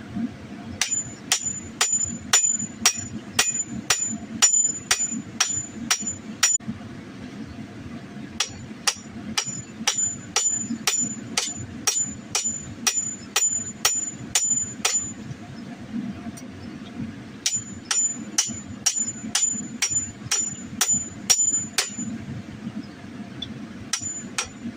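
Blacksmith's 4-pound hand hammer striking hot steel on an anvil while drawing out a sword blade, about two ringing blows a second. The blows come in runs with short pauses between, over a steady low hum.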